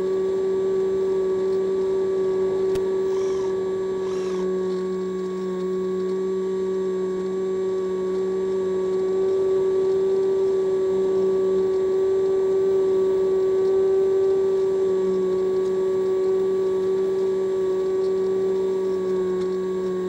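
Steady whine of the Multiplex EasyStar's electric pusher motor and propeller, heard from on board the plane, holding an even pitch under a light rush of air noise.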